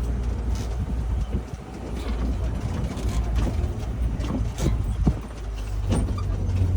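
Safari ride truck driving along its track: a steady low engine rumble with a few sharp knocks from the vehicle jolting over the rough road.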